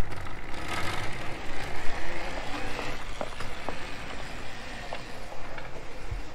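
Electric hub-motor trike driving across a grassy lawn: tyres rolling and the frame and fittings rattling, with a few scattered clicks and knocks.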